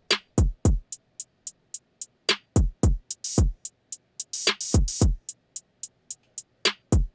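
Electronic drum beat played live on Maschine pads: deep kicks that drop in pitch, coming in clusters of two or three, with quick hi-hat ticks between them and a couple of longer hissing cymbal or snare hits around the middle.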